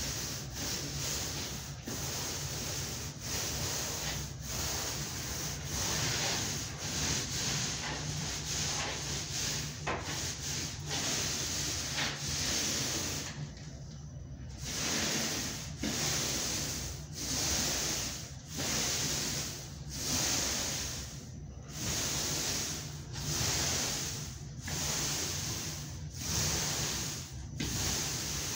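Wide paint roller on an extension pole rolling paint onto a drywall wall: a rubbing hiss with each up-and-down stroke, about one stroke every second and a half, with a brief pause about halfway through.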